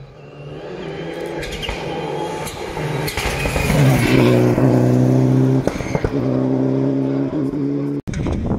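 Suzuki Swift rally car at full throttle on a gravel stage, its engine note climbing as it approaches and loudest as it passes about four seconds in, with a few quick gear changes. The sound cuts off abruptly near the end.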